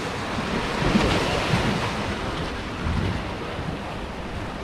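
Surf washing over and breaking against the jetty rocks, a rushing wash that swells about a second in and again around three seconds in.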